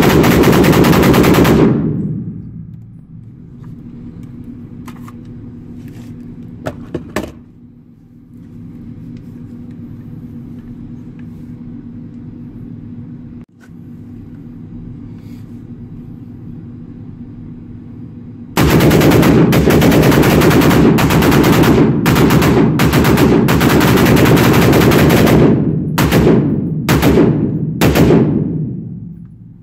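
AR-15 pistol fired in rapid strings through a Fostech Echo binary trigger, which fires on both the pull and the release, echoing in an indoor range. One string stops about two seconds in; after a long pause with a few faint clicks, a second long string starts past the middle and breaks into short bursts near the end.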